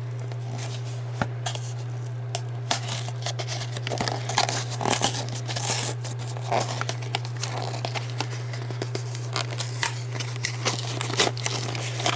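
Booster-pack packaging of D&D miniatures being torn open and crinkled by hand: irregular rustling, tearing and small clicks, busiest from a few seconds in. A steady low hum runs underneath.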